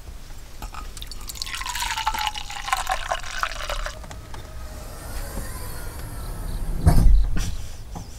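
Liquid poured into an enamel mug: a splashy pour with a gliding tone, starting about a second in and lasting about three seconds. A heavy low thump follows about seven seconds in.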